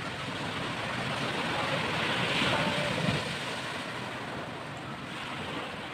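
Small sea waves washing onto a sand and coral-rubble beach, the surf noise swelling to a peak about halfway through and then easing off as the wave draws back.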